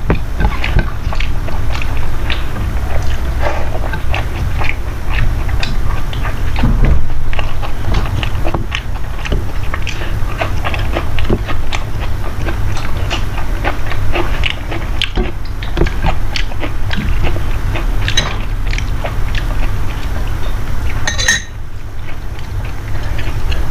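A person eating, with chewing and mouth sounds in a dense run of short clicks and smacks over a steady low hum.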